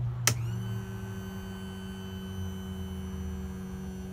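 A click just after the start, then the electric motor of a Mercruiser power trim/tilt pump running with a steady hum as the Alpha One Gen 2 sterndrive tilts up toward trailer position.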